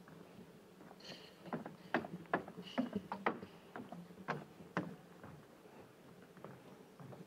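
A flurry of irregular sharp knocks and clicks, a few a second, from about one and a half to five seconds in, over a faint steady low hum.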